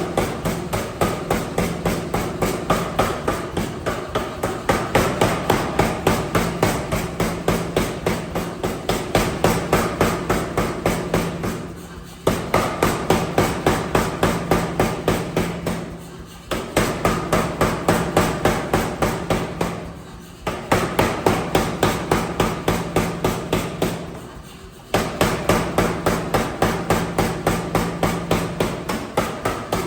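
Anyang 88 air power hammer forging hot steel, drawing out 7/8-inch round bar to flat: a steady train of loud thumping blows, about three a second, over a steady hum. The blows stop briefly four times in the second half, each break shorter than a second.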